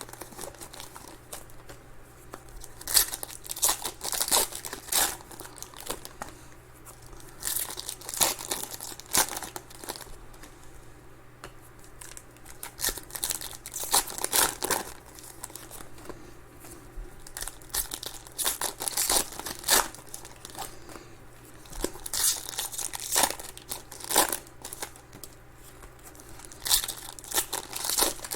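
Trading card packs being torn open by hand, the foil wrappers crinkling and crackling in irregular sharp spurts, over a faint steady low hum.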